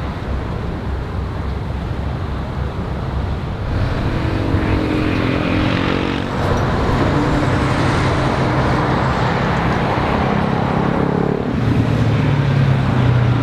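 Road traffic noise close by: a steady hum of passing vehicles, with engine sound swelling as vehicles pass about four seconds in and again near the end.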